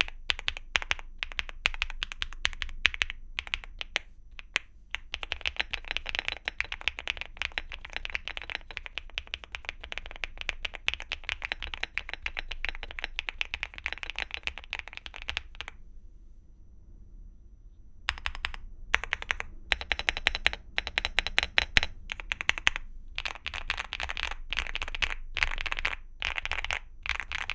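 Typing on a Weikav NUT65 mechanical keyboard with Gateron Smoothie linear switches and Cherry-profile PBT keycaps: fast runs of keystrokes with a creamy sound, breaking off for about two seconds a little past halfway and then resuming.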